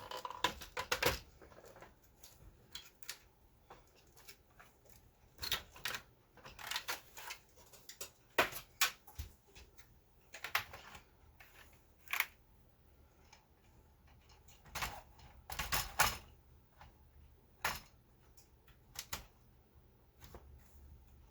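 Irregular plastic clicks and knocks from Commodore 64 hardware being handled and set up for testing, some in quick clusters with quiet gaps between.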